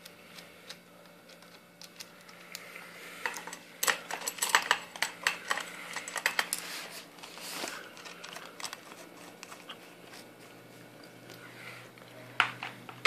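UTG low-profile bipod being fitted onto the bottom Weaver rail of a Tippmann A5 paintball marker: a run of clicks, knocks and scraping of metal and plastic parts, busiest from about three to eight seconds in, with a few light ticks before and after.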